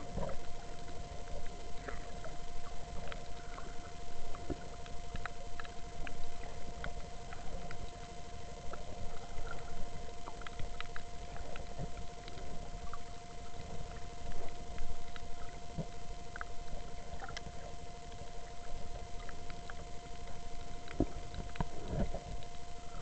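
Underwater sound picked up by a submerged camera: a steady low hum and water rumble, with sharp clicks scattered all through, the crackle typical of a shallow reef.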